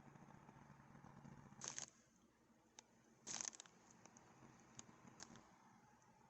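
Near silence with faint handling noise: two brief rustles, one under two seconds in and one about halfway through, and a few soft clicks.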